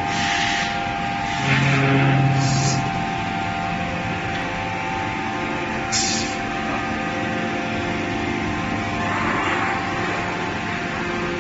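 Forging-line machinery running with a steady hum, broken by several short hisses.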